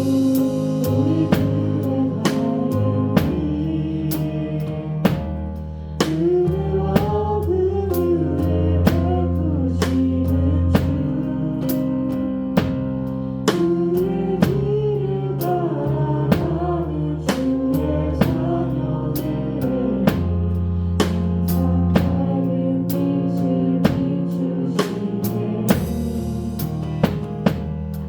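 A church praise band plays worship music. A drum kit keeps a steady beat with kick and snare under sustained keyboard chords and a bass line, with a cymbal crash near the end.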